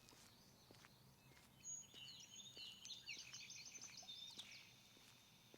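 Faint birdsong: a quick run of high chirps and trills starting about a second and a half in and fading before the end, over low background hiss.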